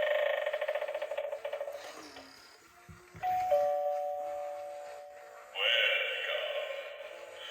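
Battery-operated Gemmy animated eyeball Halloween doorbell playing a two-note electronic ding-dong chime through its small speaker, the notes ringing down over about two seconds. Another of its electronic sound effects then starts loudly and fades.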